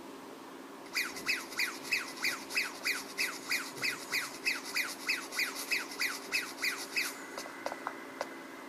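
Cartoon sound effect over a steady low hum: from about a second in, a fast, even run of short squeaky descending chirps, about four a second. The chirps stop near the end, leaving a thin steady whistle with a few light clicks.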